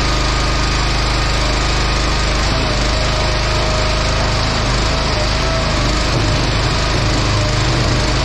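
Small gas engine of a log splitter running steadily. A wavering whine joins about two and a half seconds in.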